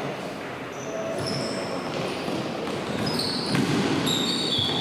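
Indoor court play: short, high sneaker squeaks on the hall floor, with a few sharp ball knocks later on, echoing in a large sports hall.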